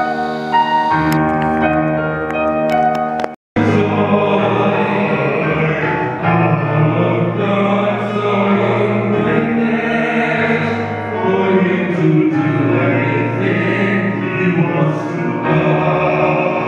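Live song with electronic keyboard accompaniment: a few seconds of sustained keyboard chords, a brief dropout about three and a half seconds in, then male and female voices singing together over the keyboard.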